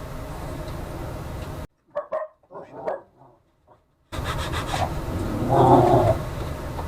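A dog barking: a few short yips about two to three seconds in, then a louder, longer bark near six seconds, over a steady low hum.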